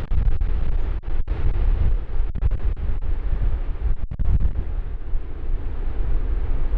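Strong wind buffeting the microphone in a heavy, gusting low rumble, over the running of the Antonov An-12's four turboprop engines as it rolls along the runway. The sound cuts out for an instant about a second in and again about four seconds in.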